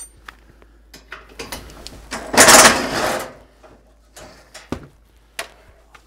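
Tools and parts being handled: scattered clicks and knocks, with one loud rattling, rustling burst about two seconds in that lasts about a second.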